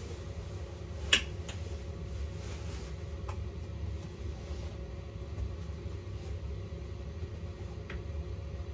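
Steady low hum of the booth's air-conditioning in a small room, with a sharp click about a second in as a clothes hanger meets a metal wall hook, and a couple of fainter clicks later.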